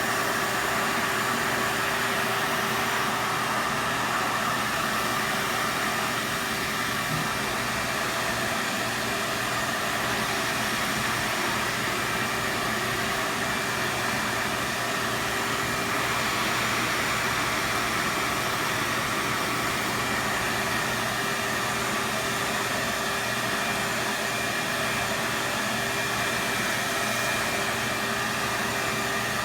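Vacuum cleaner running steadily, a constant motor whine over a rush of air.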